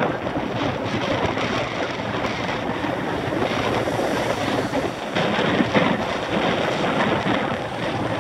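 Wind rushing over a camera microphone on a moving mountain bike, a steady noise broken by many small knocks and rattles from the ride.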